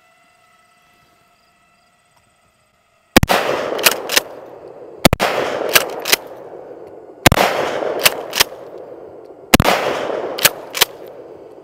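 A faint steady whine, then a Mossberg Shockwave pump-action shotgun firing birdshot four times, about two seconds apart, starting about three seconds in. Each blast rings out with a long echo and is followed by the quick double clack of the pump being racked to eject the spent shell and chamber the next.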